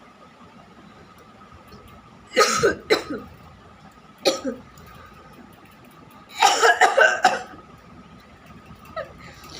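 A person coughing on purpose, imitating coughs. There are two harsh coughs about two and a half seconds in and another near four and a half seconds. A longer fit of four or five coughs follows around six to seven seconds, and a small one comes near the end.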